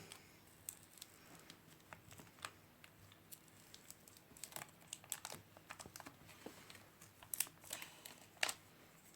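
Faint crinkling and light tearing of paper and plastic being handled, with scattered small clicks, as a sticker or its adhesive is worked by hand.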